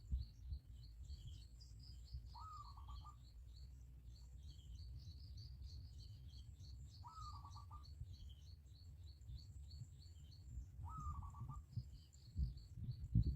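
Birds calling: one bird repeats a short call about every four seconds, over a steady stream of high, rapid chirps. A low rumble underneath gets louder near the end.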